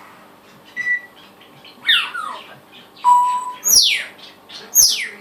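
Pet parrots making whistled sound effects: a short steady beep-like tone about a second in, another lower one near three seconds, and three loud falling whistle-squawks.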